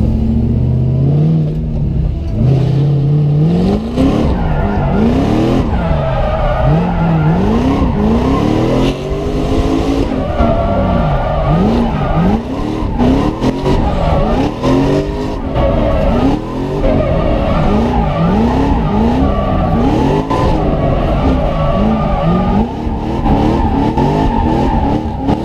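Supercharged V8 in a BMW M3 drift car, heard from inside the cabin, revving up and dropping back over and over, roughly once a second, as the throttle is worked through a drift. Tyres screech against the tarmac throughout.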